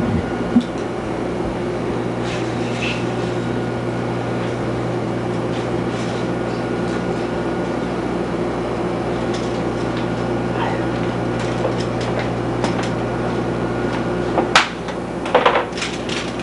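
A steady low electrical hum, then near the end a sharp knock and a few clattering knocks as toys are set down on a baby's high-chair tray.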